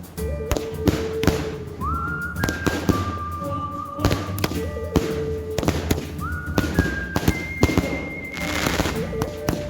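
Fireworks going off: a rapid run of sharp bangs and crackles throughout, with several held whistling tones rising in at their starts and overlapping, about every two seconds.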